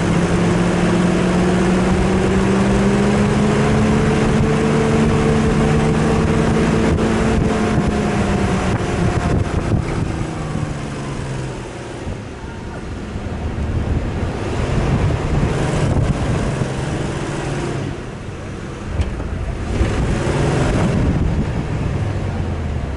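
Four-wheel-drive vehicle's engine working under load while driving offroad, its pitch climbing and easing for about ten seconds. It then drops off and revs up again in shorter pulls, over a steady rushing noise.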